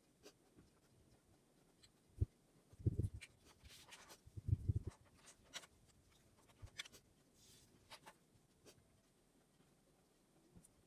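Pen writing on grid paper: short scratchy strokes and light taps of the pen, mostly in the middle few seconds. A few dull thumps, the loudest sounds, come about two to five seconds in.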